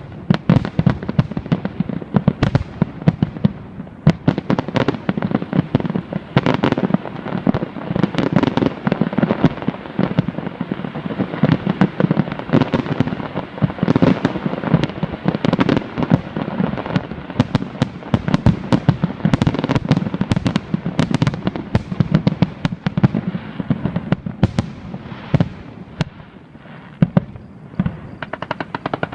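Fireworks display: a dense, continuous barrage of bangs and crackling, thinning a little near the end.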